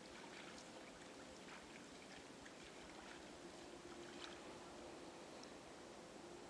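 Near silence, with faint scattered splashes and drips from a black bear wading through shallow standing water.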